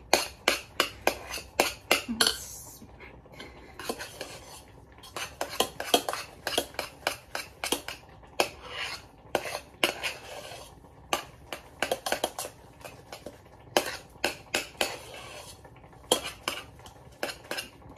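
A spoon stirring ramen noodles in a stainless steel pot, clinking and scraping against the pot's sides several times a second, with a couple of short pauses.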